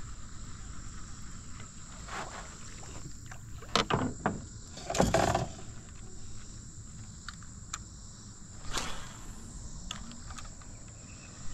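Steady high-pitched drone of insects, crickets or cicadas, under a low outdoor rumble. Over it come several short knocks and clicks of gear being handled in a fishing boat; the loudest is a noisy rush about five seconds in, with another near the end.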